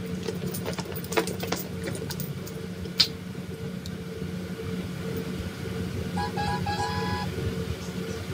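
A steady low mechanical hum, with a few sharp clicks about a second in and another around three seconds in, and a short run of high notes around six to seven seconds in.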